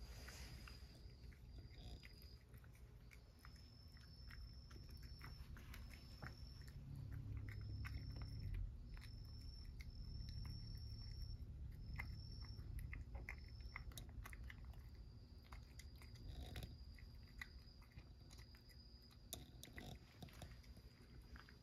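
A cat eating, with faint irregular crunching and chewing clicks. A high thin trill comes and goes in spells of about a second behind it.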